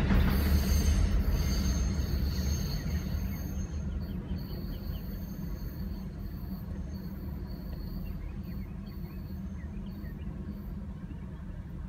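Amtrak train of enclosed autorack cars rumbling past and fading steadily as it moves away down the line, with a faint high squeal from the wheels coming and going.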